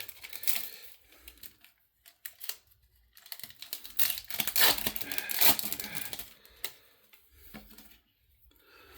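Foil Pokémon booster pack and cards being handled: crinkling, rustling and small clicks, busiest in the middle.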